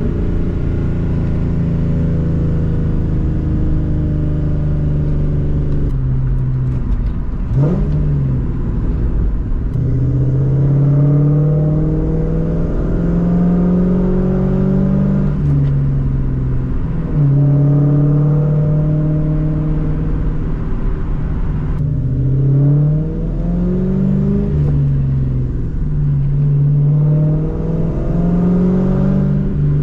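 2004 Mustang GT's 4.6-litre V8 running through an off-road X-pipe and Borla S-Type mufflers, pulling under acceleration. Its pitch climbs and drops back again and again, as with gear changes, with one quick sharp rev about a quarter of the way in.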